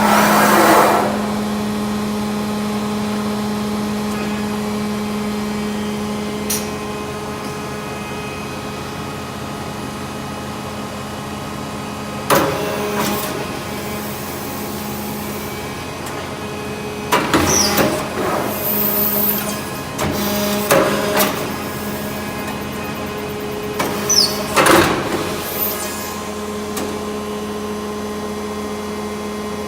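Hydraulic power unit of a CNC tube bender running with a steady hum. Several short bursts of clanking and hissing come from the machine's moving dies and carriage.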